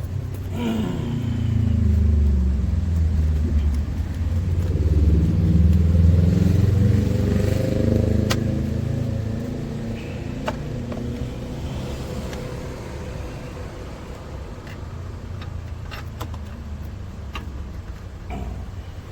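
A motor vehicle engine running, its pitch gliding up and down. It swells over the first few seconds and fades after about eight seconds, with a few sharp clicks afterwards.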